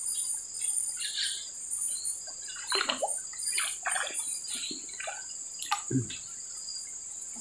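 A small hooked fish splashing at the water's surface as it is reeled in: a string of short splashy bursts, with a dull thud about six seconds in. A steady high insect drone runs underneath.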